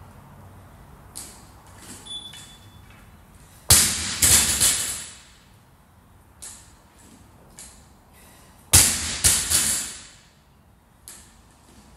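An 85 lb barbell dropped from overhead onto the gym floor after a snatch, twice, about five seconds apart. Each drop lands with a loud bang and bounces two or three more times before settling. Between the drops there are lighter clinks of the bar and plates.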